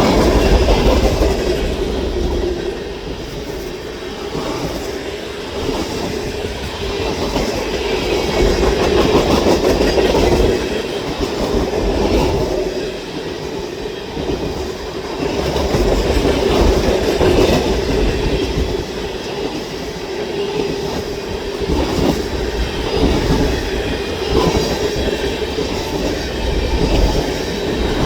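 CN manifest freight train rolling past close by: a steady rumble and rattle of wheels and cars, with rhythmic clicking over the rail joints and a steady ringing wheel tone. The loudness swells and eases every several seconds.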